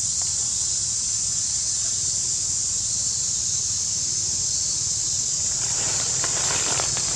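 Steady high-pitched drone of insects, with faint rustling crackles near the end.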